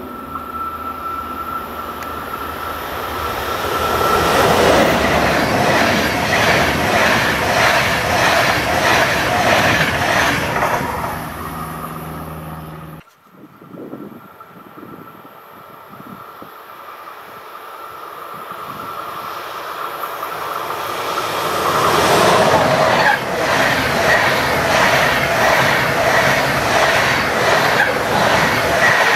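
Two trains pass on an electrified main line. First, an ÖBB electric locomotive hauling a Eurocity passenger train goes by with loud, rhythmic wheel clatter. After a sudden cut about 13 seconds in, the Rheingold special train, hauled by DB electric locomotive 101 001 with TEE-style coaches, approaches and runs past, its clatter building to the same loud, regular rhythm.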